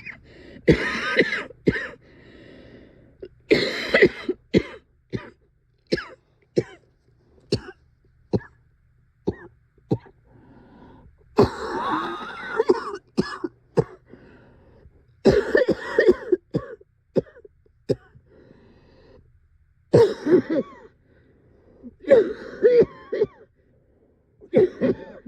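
A person in a prolonged coughing fit: harsh coughs coming in irregular bouts, some single and sharp, others in longer strings of several coughs.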